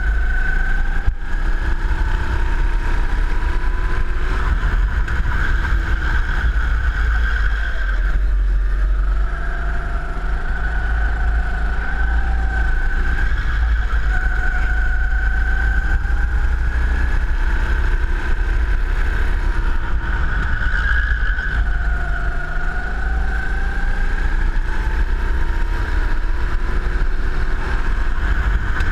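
Go-kart engine heard from the driver's seat while lapping a track. Its pitch rises on the straights and drops each time the throttle is lifted for a corner, over a strong low rumble of wind on the microphone. There is a single sharp knock about a second in.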